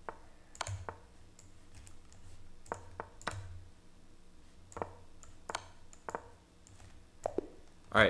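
Computer mouse clicking, about a dozen short sharp clicks at irregular spacing, as chess moves are made in quick succession in an online blitz time scramble.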